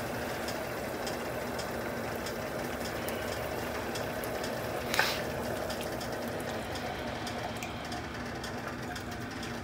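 Chicken broth simmering in an enameled cast-iron Dutch oven, a steady bubbling with small pops over a faint hum, as heavy cream is poured in from a glass measuring cup. One brief knock about five seconds in.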